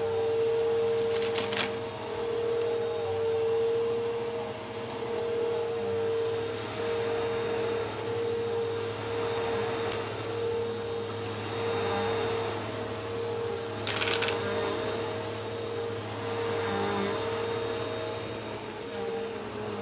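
Upright vacuum cleaner running on carpet with a steady motor hum and a high whine, rising and falling in level as it is pushed back and forth. Two brief crackles, about a second and a half in and at about fourteen seconds, are crunchy debris being sucked up.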